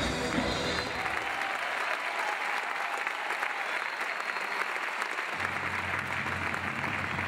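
Audience applauding, a dense steady clapping, as drum-led band music stops within the first second. A low steady hum comes in about five seconds in.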